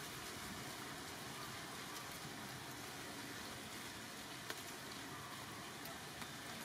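Faint, steady hiss of background noise, with one small click about four and a half seconds in.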